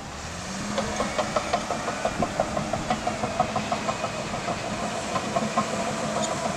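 Diesel engine of an earthmoving tractor working sand, running steadily after rising in pitch a little at the start, with a fast rhythmic pulsing of about five beats a second over it.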